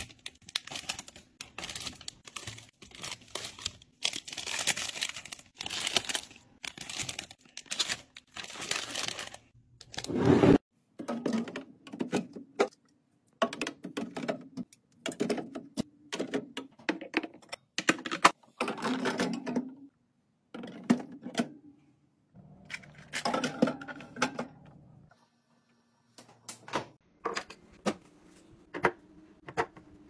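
Hands-on restocking sounds in quick, irregular bursts. For the first third, small foil snack bags crinkle as they are dropped into a clear acrylic bin; this stops abruptly. After that comes a run of clicks and clacks as cans and small plastic drink bottles are set into clear plastic organiser bins.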